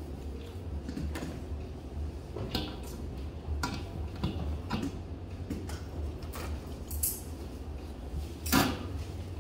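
Scattered light clicks and clinks of small hard objects over a steady low hum, with one louder knock near the end.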